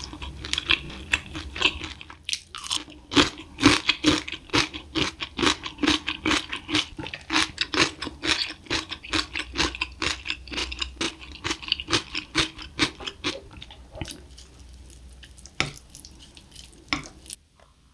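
Close-miked crunching and chewing of crispy spicy fried chicken: a long quick run of crackling bites that thins out near the end into a few separate soft clicks.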